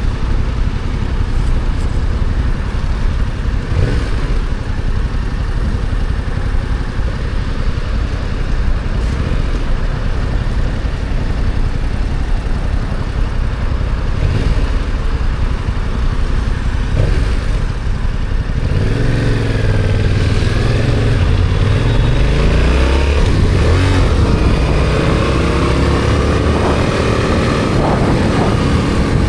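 Stock Yamaha XSR700 parallel-twin engine running under way, with a steady rushing road noise. From about two-thirds of the way in, the engine note rises and falls several times as the bike revs up and backs off.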